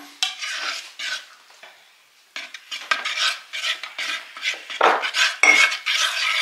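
A utensil stirring a thick sauce in a bowl, scraping and clinking against its sides in quick strokes; the stirring pauses briefly about a second and a half in, then resumes faster.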